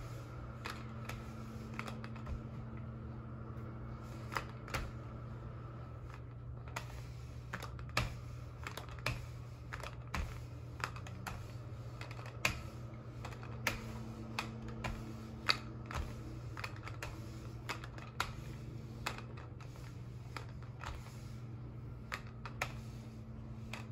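Plastic rolling pin working salt dough on a pastry mat over a glass tabletop: irregular light clicks and knocks as the pin is rolled back and forth, about one or two a second. A steady low hum runs underneath.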